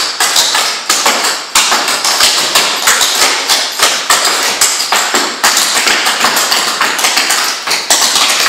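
Clogging shoes' metal taps striking a wooden floor in a quick, rhythmic stream of sharp clicks and stomps, two dancers stepping together.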